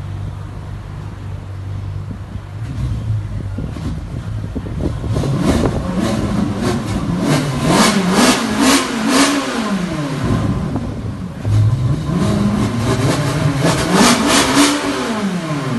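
Ferrari 458 Speciale's naturally aspirated V8 idling, then revved up twice, its pitch climbing, holding briefly and dropping back each time.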